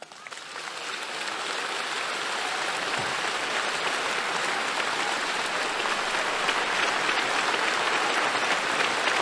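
Large arena crowd applauding, building over the first couple of seconds and then holding steady.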